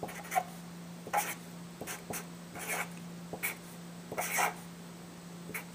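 Marker writing on a board in short, irregular scratching strokes, over a steady low hum.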